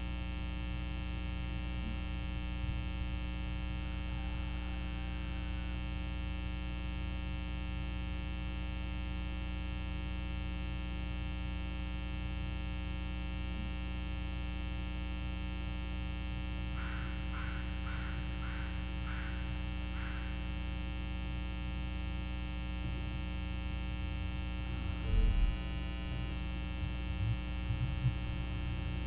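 Steady electrical hum, a buzz with many even overtones, on the nest camera's audio line. A little past halfway a bird gives a quick series of about six short, high calls, and a dull thump comes near the end.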